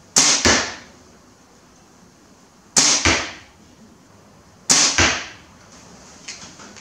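Three compound-bow shots, each a sharp crack at release followed about a third of a second later by a second crack as the arrow strikes the target. A few faint clicks follow near the end.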